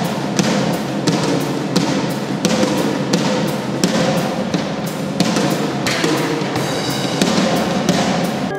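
Percussion music: drums beating a steady pulse of about two strikes a second over a constant wash of sound.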